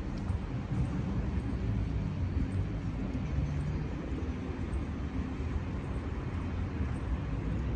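Steady low rumble of distant road traffic in a city, with no single vehicle standing out.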